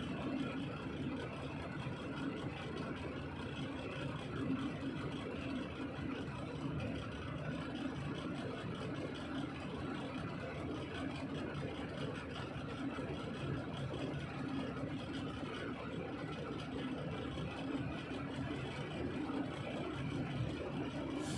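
Steady engine and road noise of a moving truck, an even low rumble with no change in pace.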